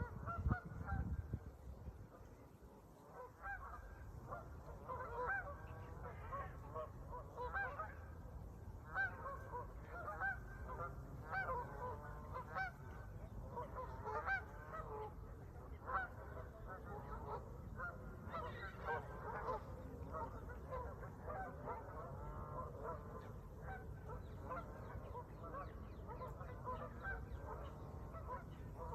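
A flock of birds calling: many short, overlapping calls throughout, over a steady low rumble.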